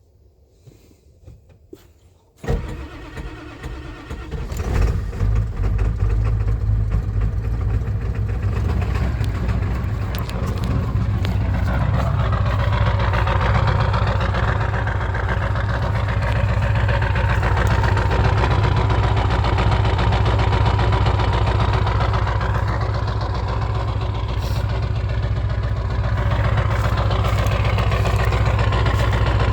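1996 Ford 7.3 Powerstroke V8 turbo-diesel cold-starting at 18°F. It is silent at first, starts suddenly about two and a half seconds in, builds over a few seconds, then settles into a steady loud idle. The cold idle is noisy and knocking, which the owner suspects may be a misfire or bad injectors.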